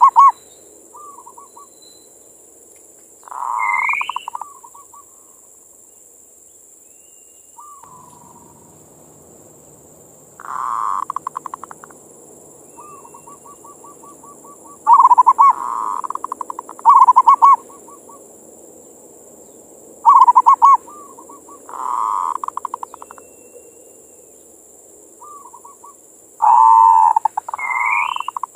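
Perkutut (zebra dove) cooing. It gives short phrases of rapid, stuttering coos every few seconds, some in quick pairs, over a faint steady hum.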